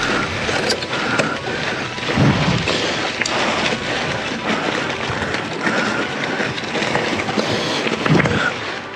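Mountain bike rolling over a rough dirt trail: continuous tyre and wind noise with frequent rattles and knocks, and two low thumps about two seconds in and near the end.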